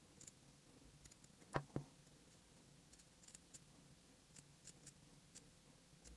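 Scissors snipping cotton knit fabric: faint, quiet blade clicks at irregular intervals, with two sharper clicks close together about a second and a half in, the loudest sounds.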